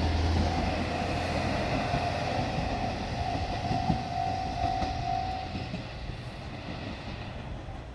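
A JR Shikoku diesel railcar train passing on the line, its engine and wheel noise fading steadily as it moves away. A steady tone runs over it for the first five seconds or so and stops.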